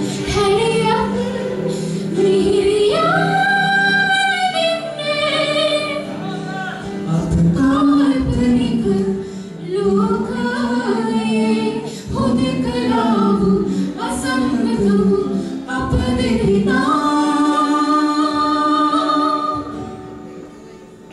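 Live vocal performance of a slow melodic song: a female lead voice, with a male voice at times, sings over acoustic guitar accompaniment. The singing stops near the end and the music falls quieter.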